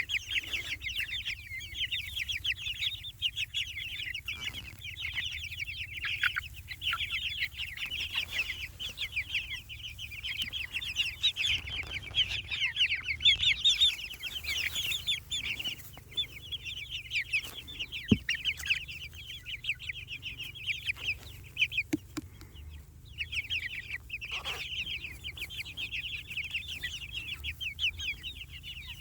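A flock of young Jersey Giant meat chickens peeping continuously in rapid, high chirps, falling quiet briefly about three-quarters of the way through before starting up again.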